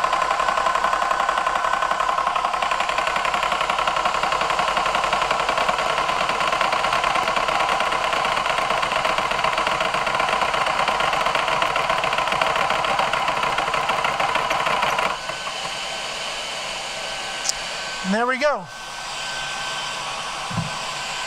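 Air Venturi Nomad II portable PCP compressor running under load while filling an air rifle, its pump and cooling fans going steadily. About 15 seconds in the pump stops suddenly at the auto-shutoff, leaving the cooling fans running more quietly with a thin steady whine. A brief whirring sweep and a couple of clicks follow near the end.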